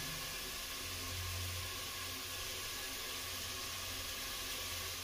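Chicken cooking in masala in a large metal pot, giving a steady sizzling hiss with a low hum underneath.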